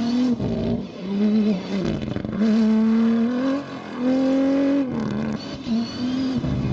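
A rally vehicle's engine running hard at high revs. Its pitch holds or climbs slightly in each stretch and breaks off briefly four times, as with gear changes under acceleration.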